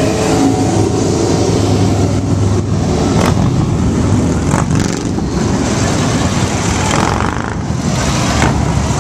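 Motorcycles, including a trike, riding past one after another, their engines making a steady, loud mixed noise.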